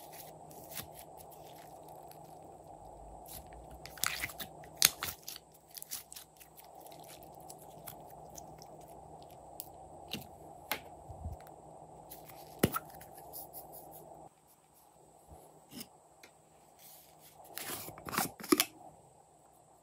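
Hands squeezing and kneading glossy slime, giving irregular short clicks and pops, with a louder cluster of clicks near the end.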